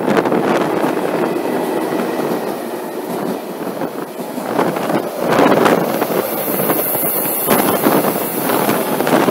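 Two passenger trains running past a station platform on neighbouring tracks: a steady rush of wheels on rail that swells about five seconds in, with a few sharp wheel clacks. Wind buffets the microphone.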